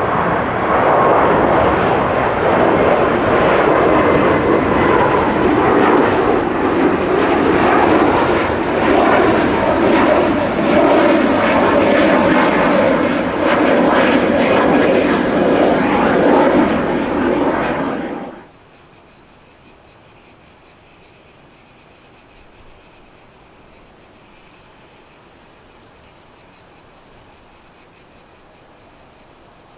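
An airliner's engines close by, loud and steady, stopping abruptly about 18 seconds in. Then only steady high-pitched insect chirping is left.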